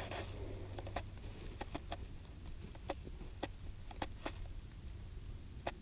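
Faint handling noise: a dozen or so small clicks and taps at irregular intervals over low background noise.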